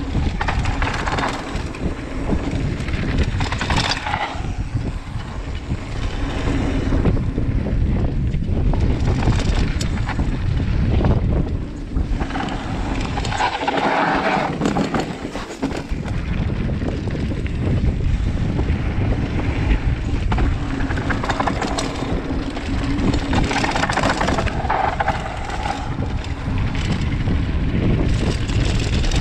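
Wind buffeting a camera microphone on a mountain bike riding fast down a dirt trail, mixed with the tyres rolling over dirt and rock; the low rumble eases briefly about halfway through.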